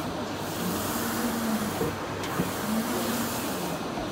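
JHF A180 UV LED roll-to-roll printer with Kyocera print heads running a print job. Its print-head carriage shuttles across the media, and its motor whine holds one pitch through each pass, then dips and rises as the carriage turns around, about every two seconds.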